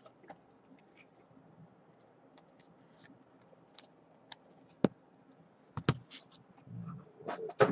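Scattered light clicks and taps of trading cards and rigid plastic card holders being handled on a table. There is a sharp click about five seconds in and a quick run of taps near the end.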